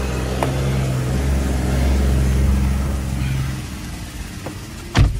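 Car engine running, heard from inside the cabin: a steady low hum that swells slightly, then drops away after about three and a half seconds. A single sharp thump near the end.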